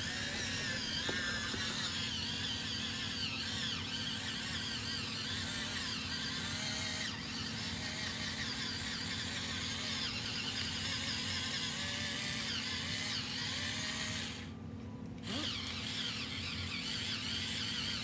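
Small electric pencil sharpener's motor whirring steadily as a pencil is ground in it. It stops briefly near the end, then runs again.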